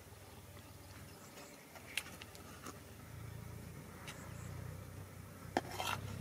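Faint clinks and scrapes of a metal ladle against a steel cooking pot as curry is scooped out, with a sharper knock near the end, over a low steady hum that comes in about halfway.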